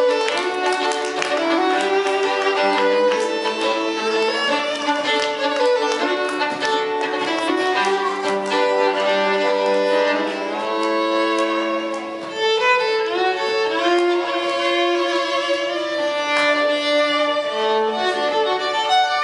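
Two violins playing a duet, with held, overlapping notes in two parts.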